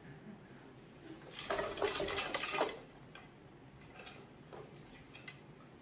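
Blue-and-gold macaw giving a short raspy, rattling chatter about a second and a half in, lasting about a second, followed by a few faint clicks.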